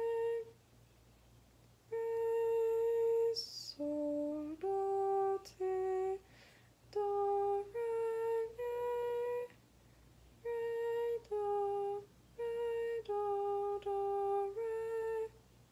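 A woman humming a slow minor-key melody one held note at a time, each note steady in pitch with short breaks between them, as she sight-sings the tune.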